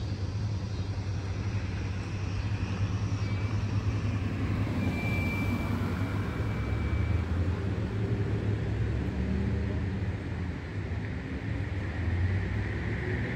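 Street traffic: cars driving past and engines running, a steady low rumble under a continuous road-noise hiss. A faint, steady high tone is heard for a couple of seconds around the middle.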